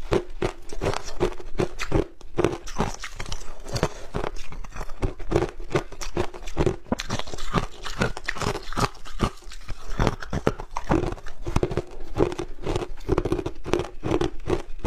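Chunks of hard ice being bitten and chewed, a rapid run of sharp crunches close to a clip-on microphone.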